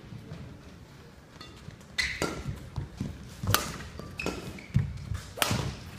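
Badminton rally: several sharp racket-on-shuttlecock hits, starting about two seconds in, with footfalls and short squeaks from shoes on the court.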